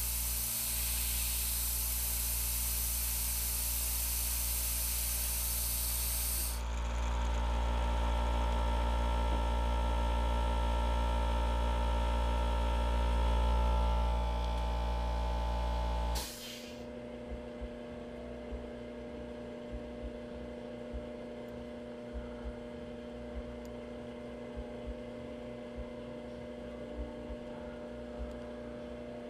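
Milling machine spindle motor running under a steady hiss. The hiss stops about six seconds in, the motor's whine and drone carry on and cut off suddenly about sixteen seconds in, then a steady electrical hum remains with small clicks of handling at the chuck.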